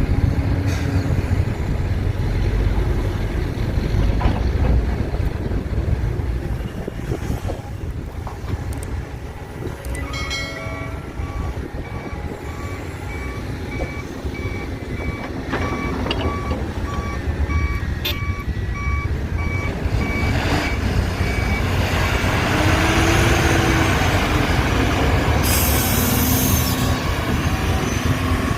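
Heavy diesel machinery engines running steadily, with a reversing alarm beeping at an even pace for about ten seconds in the middle. A louder rushing noise builds near the end.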